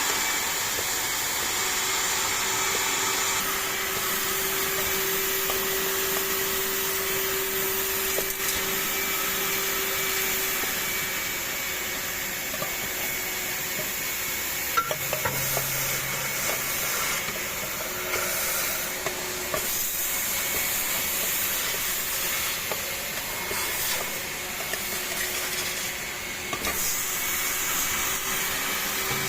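ADS 328 HEPA industrial vacuum cleaner running steadily, with a faint steady whine under its airflow noise. Scattered clicks and rattles come about halfway through, as debris is picked up.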